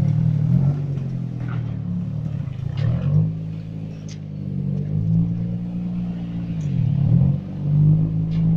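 Car engine of a half-cut car, fed from an LPG gas cylinder, running as the car is driven, its note falling and rising several times.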